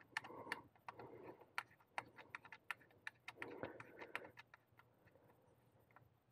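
Faint, irregular light clicks and taps of hand tools and parts being handled in the engine bay, several a second for about four seconds, then dying down.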